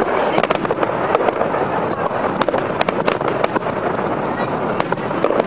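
Fireworks going off continuously: many sharp pops and crackling bursts overlapping one another, with no break.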